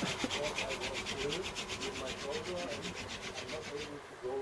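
Wooden hand-drill spindle spun back and forth between the palms, grinding into a wooden fireboard to make an ember by friction: a rapid, even rasping rhythm of several strokes a second that stops about four seconds in.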